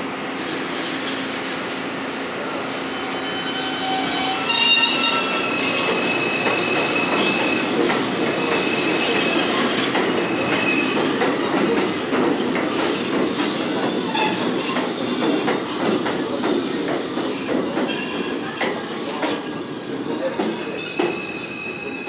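R142 subway train running past the platform, its steel wheels rumbling on the rails, with high-pitched wheel squeals several times.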